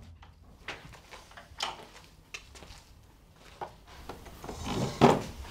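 A door is opened and someone walks in, making a few scattered light knocks and steps. About four seconds in, a chair is scraped across the floor, building to a loud thump about five seconds in.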